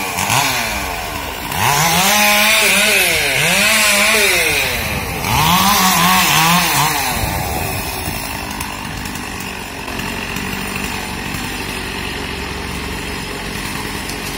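Petrol chainsaw revving up and down in several surges as it cuts into branches, then dropping to a steady lower running about halfway through.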